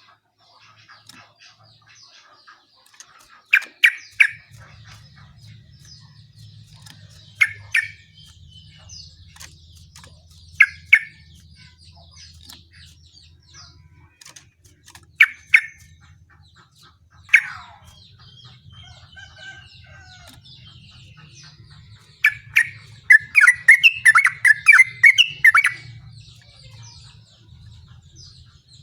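Yellow-vented bulbul singing. Loud short bubbly phrases come every few seconds, then a longer rapid run of notes about 22 seconds in, over fainter chirping and a faint low hum.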